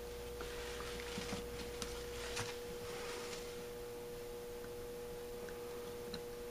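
Faint clicks and light scraping of a screwdriver and small screws as the choke plate screws go into a Holley 1904 carburetor, mostly in the first half, over a steady high hum.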